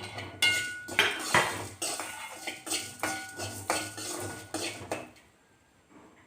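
A utensil scraping and clinking around a kadai, stirring roasting horse gram, cumin, coriander seeds and fenugreek, in a run of quick strokes that stops about five seconds in.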